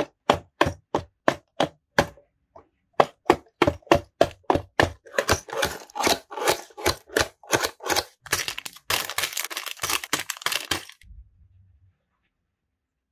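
Cardboard toy box being handled and opened: a run of sharp clicks and taps about three a second, then denser crackling and rustling as the flap is opened and the contents are pulled out, stopping shortly before the end.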